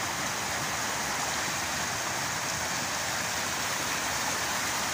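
Floodwater rushing across a road in a steady, unbroken rush.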